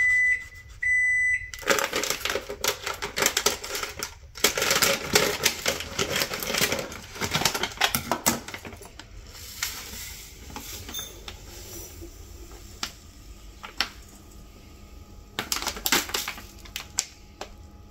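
Two short, high electronic beeps at the start. Then a plastic packet crinkles loudly and crackles for several seconds as it is snipped open with scissors and handled. Quieter handling follows, with a brief rattle of rava (semolina) grains poured into a steel tumbler near the end.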